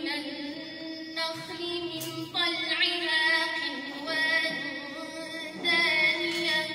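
A woman reciting the Quran in melodic tajweed style into a microphone: long held, ornamented notes in several phrases with short breaths between, the last phrase starting near the end.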